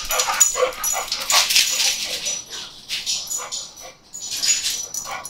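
A dog moving about close to the microphone, making a run of irregular short noisy sounds.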